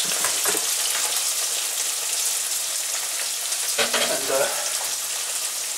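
Starch-coated chicken strips deep-frying in a pan of hot oil: a steady sizzle.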